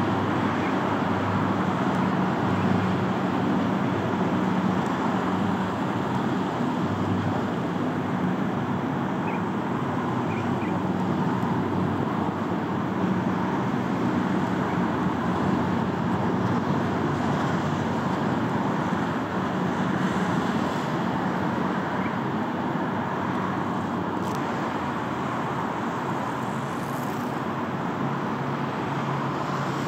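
Steady drone of motorboat engines out on the water, low droning tones that shift now and then, over a continuous wash of noise.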